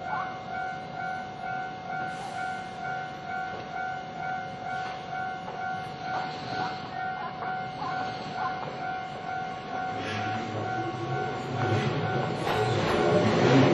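Japanese level-crossing warning bell ringing in a steady, evenly repeating clang. Over the last few seconds a Keihan electric train approaches, and its rumble grows steadily louder until it is the loudest sound.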